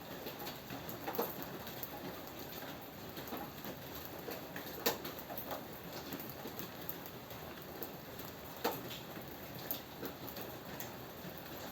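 Steady rain falling, with a few sharper, louder drops landing close by, about one, five and nine seconds in.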